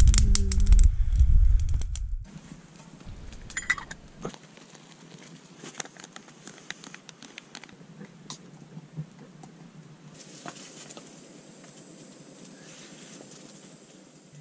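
Campfire crackling with scattered sharp pops. The first two seconds are louder, a low rushing noise full of crackle, before it drops to a softer crackle.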